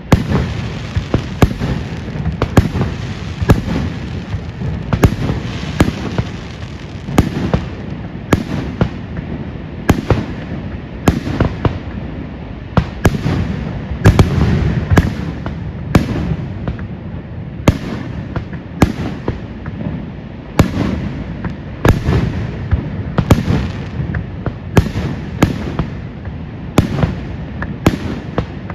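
Fireworks display in full swing: shells bursting in quick succession, about one or two sharp bangs a second, over a continuous low rumble of booms.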